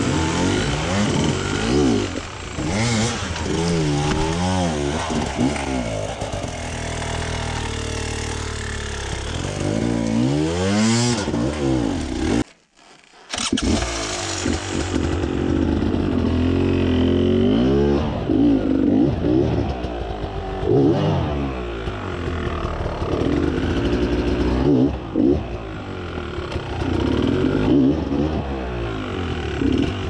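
Beta enduro motorcycle engine revving up and down over and over, its pitch rising and falling with each blip of the throttle as the bike crawls up a rocky climb under load. The sound cuts out for about a second near the middle.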